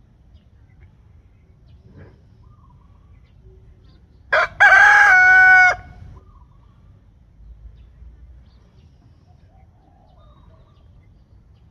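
A rooster crows once about four seconds in: a short first note, then a long held call of about a second and a half.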